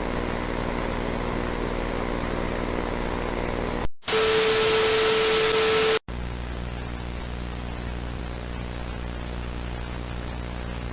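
A steady droning hum made of several held tones, broken off about four seconds in by two seconds of loud static with a steady tone through it. The static cuts out abruptly and gives way to a quieter static hiss over a low hum.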